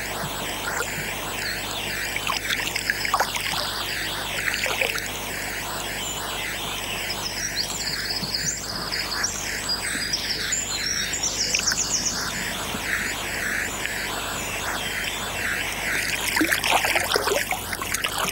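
A hooked trout splashing in shallow river water as it is played and landed, over electronic background music, with birds chirping.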